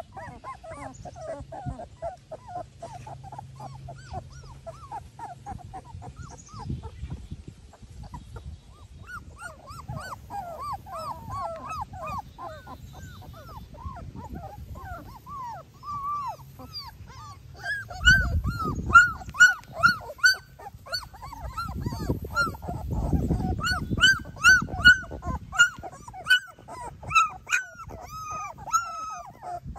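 Three-week-old Labrador retriever puppies whimpering and squeaking in a steady stream of short, high calls, which grow louder and come faster about two-thirds of the way through. There are two spells of low rumbling noise at the same point.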